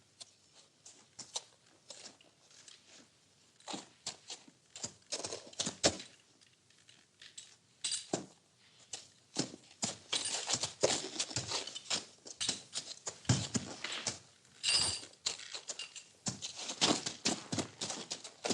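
Horse stable sounds: irregular knocks, clatters and rustling of horses moving and feeding in their stalls, sparse at first and much busier from about eight seconds in.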